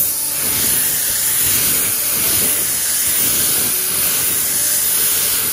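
Paint spray gun hissing steadily as it lays down a semi-wet coat of candy blue paint.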